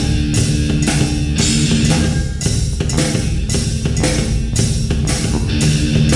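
Background rock music: guitars and bass over a steady drum beat.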